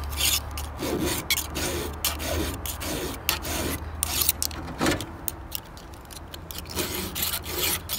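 Hand file rasping in repeated short strokes over the raker depth gauges of a 404-pitch saw chain, taking down rakers that stand too high.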